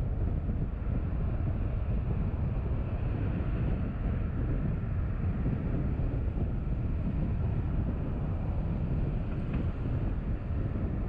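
Steady low rumble of a car driving: road and wind noise from the moving vehicle.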